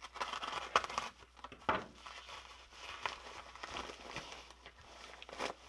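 Paper padded mailer being opened by hand: crinkling and rustling paper, with a few sharper crackles spread through.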